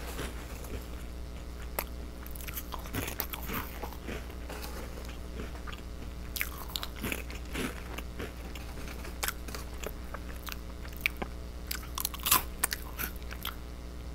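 Close-up crunching and chewing of small fish-shaped crackers: crisp, irregular crunches with bites in between, the loudest about twelve seconds in.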